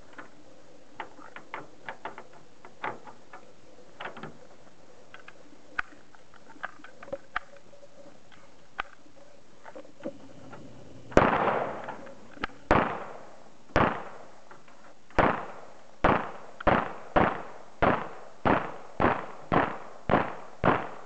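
A .45 ACP Glock pistol fires about fourteen shots in a steady string starting about eleven seconds in, roughly one every half second to second, each crack followed by a short fading echo. Before the shooting there are only faint light clicks and knocks.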